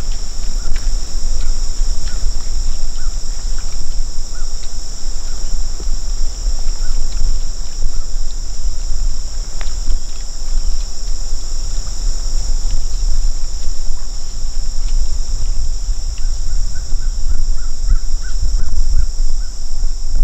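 Marsh ambience: a steady high-pitched insect drone over a gusty low rumble of wind on the microphone. There are short calls repeated a few times near the start and in a quick run of about eight near the end.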